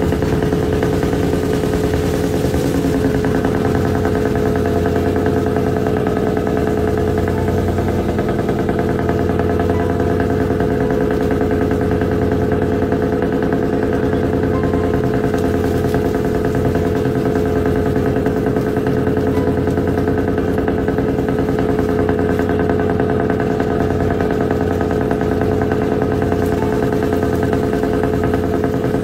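A shrimp trawler's engine and deck machinery running steadily: a constant mechanical drone with a strong, even hum.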